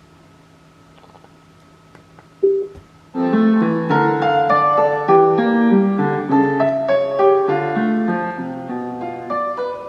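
A short single beep, then about three seconds in a solo piano starts playing a quick classical sonatina movement, notes running up and down.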